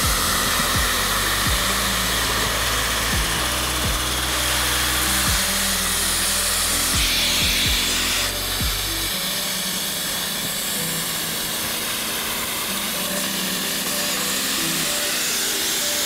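Festool dust extractor running with a steady hiss while a cordless drill bores an access hole in the panel through a drilling template, over background music.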